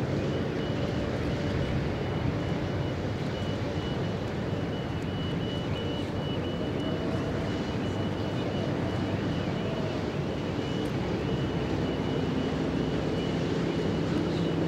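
Steady low engine drone of harbour shipping, with a thin steady high whine over it.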